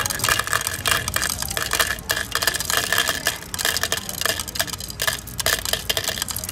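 Personalized M&M's candies dropping one after another from a machine's metal chute into a cup: a quick, irregular run of small hard clicks and clatters as the candies land on each other.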